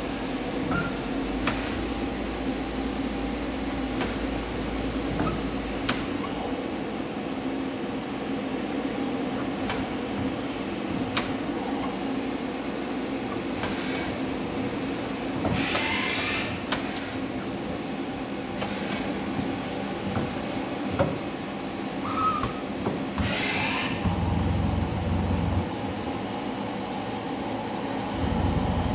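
Miyano BNE-34S2 twin-turret CNC lathe running a machining cycle: a steady machine hum with a high spindle whine that steps to a new pitch a few times, with coolant spraying. Two short hisses come about halfway and near the end, with scattered clicks as the turrets and sub spindle move.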